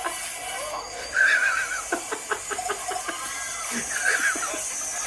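Hearty laughter in rapid, repeated ha-ha bursts, with a high-pitched squealing laugh about a second in.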